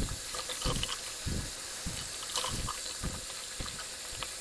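Bathroom faucet running into a removed PVC P-trap, the water flushing through the pipe and spilling into the sink basin, with a soft low thump about every half second.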